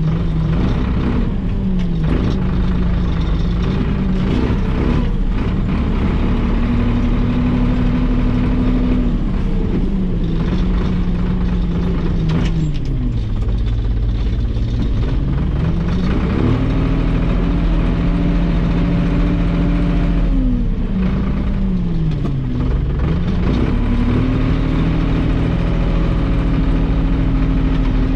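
Valmet 602 tractor's diesel engine running under work, its revs rising and falling several times with some clatter from the machine.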